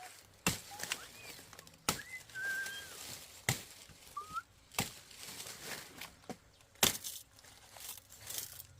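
About five sharp woody knocks at irregular intervals as sugarcane is harvested, with short whistled bird chirps, some rising and some wavering, between them.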